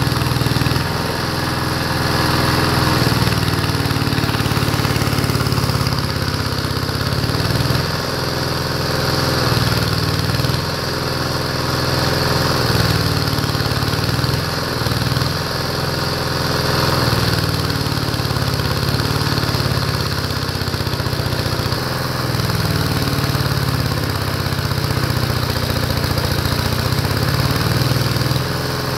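Single-cylinder engine running steadily under load, belt-driving a motor used as a generator, its note dipping and recovering now and then. An arc-welding electrode fed from the generator crackles on a steel plate over the engine.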